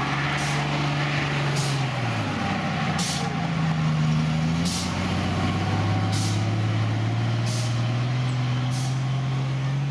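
Star army truck's engine pulling it across sandy ground, its pitch dipping about two seconds in, climbing again, then holding steady and lower for the rest. Short hisses come about every second and a half over the engine.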